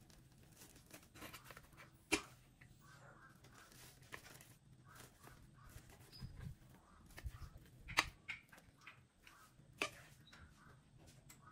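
Stainless knife and fork cutting a soufflé omelette on a ceramic plate: faint soft scraping, with sharp clinks of the cutlery against the plate about two seconds in, around eight seconds in and again near ten seconds.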